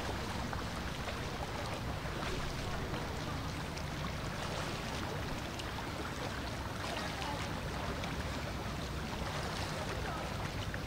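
Steady water ambience: gentle lapping water with many small bubbling ticks and splashes, without a break.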